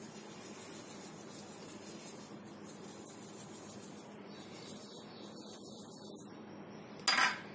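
Steady low background hiss with no distinct sounds, broken about seven seconds in by one short, sharp knock that is far louder than the rest.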